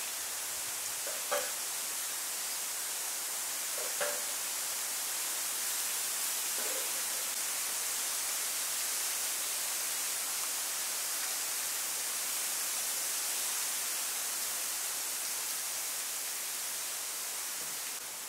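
Steady high hiss, with a couple of faint short sounds about one and four seconds in; it eases off slightly near the end.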